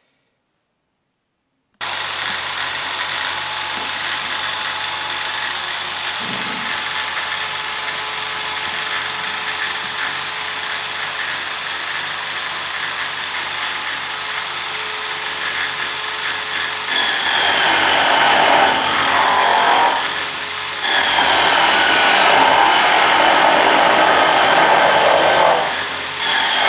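Electric drill/driver mounted as a homemade bench drill, switched on about two seconds in and running steadily. From about 17 seconds on it gets louder and rougher, with two brief dips, as it bites into the wood.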